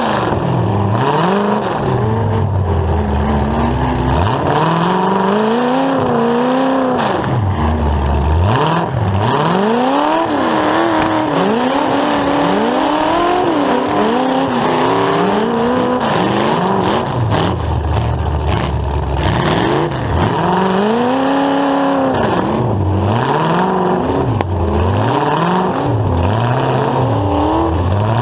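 Full-size demolition derby car's engine, with open exhaust stacks through the hood, revving up and dropping back again and again as the car accelerates, with the pitch rising and falling every second or two.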